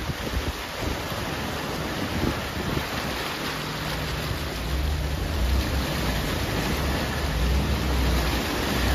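Wind rushing over the microphone as a steady hiss while moving through floodwater, with a low engine hum that comes in about three and a half seconds in and grows stronger.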